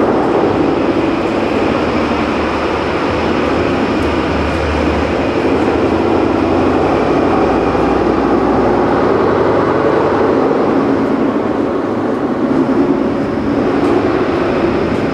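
A train running over the rails, a loud steady rumble with faint high ringing tones above it, heard from inside a station's pedestrian underpass.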